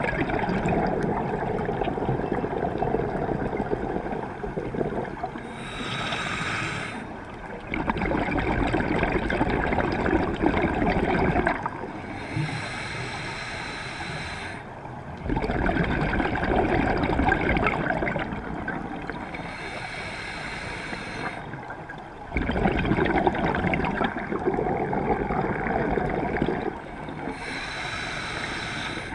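Scuba diver breathing through a regulator, about four breaths. Each is a bubbling, rumbling exhale of some four seconds followed by a shorter, higher hiss of inhalation.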